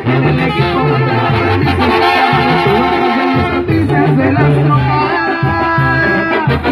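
Live banda music: a brass band's horns and a pulsing low bass line playing under men singing into microphones. The horns hold a long chord from about five seconds in.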